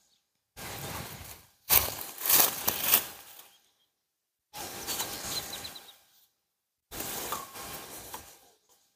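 Aluminum sections of a sectional flagpole being worked apart by hand at a joint: four bursts of scraping and grinding, metal on metal, the loudest about two seconds in. The joint's tape shim is wearing away, so the sections rub directly.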